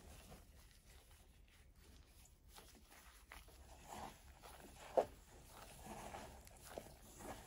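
Gloved hand kneading crumbly rice-flour and carob dough in a stainless steel bowl: soft, irregular squishing and rustling, with a sharp click about five seconds in.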